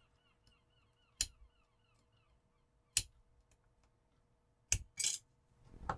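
Sharp metal clicks of steel tweezers prying at the stamped metal shield cover on an Amazon Echo Dot circuit board, the cover held on tightly. There are four clicks: one about a second in, one at three seconds, and two in quick succession near the end.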